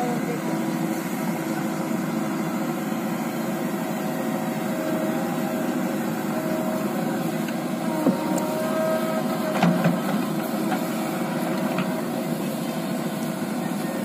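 JCB 3DX backhoe loader's diesel engine running steadily while the backhoe arm works, with two short knocks about eight and ten seconds in.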